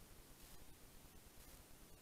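Near silence: a faint even hiss from the camera's own microphone, with a thin steady high whine and soft swells of hiss about once a second.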